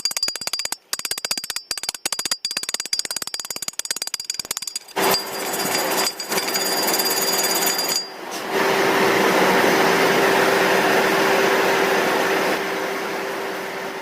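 Electric arc welding on square steel pipe: a rapid, irregular crackle for about five seconds, then a steady hiss with a constant low hum.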